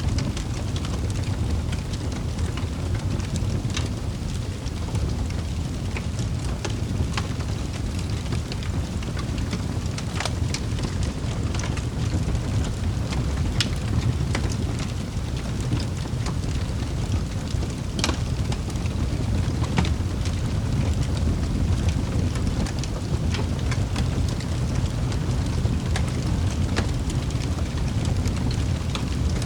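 Wood fire crackling in a fireplace: a steady low rumble of flames with scattered sharp pops and snaps, a few of them louder.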